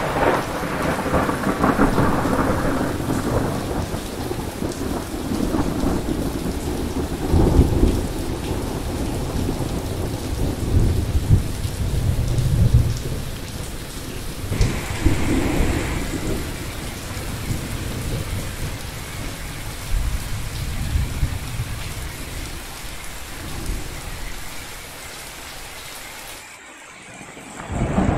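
Thunderstorm: rolling thunder rumbling again and again over steady heavy rain. The rumbles swell and fade, and ease off near the end.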